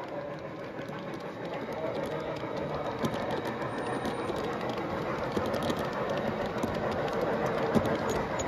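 G scale Aristocraft Union Pacific heavyweight passenger cars rolling past on model track, their wheels running steadily and clicking over the rail joints, with one sharper click near the end.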